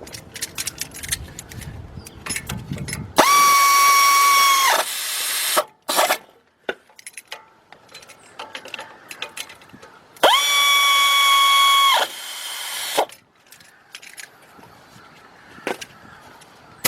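A power tool runs the front brake caliper bolts tight in two bursts of about a second and a half each, a steady whine that starts and stops sharply. Metal clicks and clanks of tools and parts come between the bursts.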